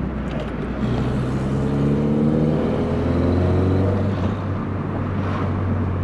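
VW Polo Coupe engine running under load while driving, with road noise. Its pitch dips just before a second in, then climbs slowly as the car accelerates, and levels off near the end.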